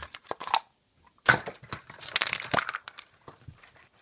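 Plastic surprise egg handled and pulled open by hand: a few sharp clicks, then, about a second in, a couple of seconds of crackling and snapping plastic.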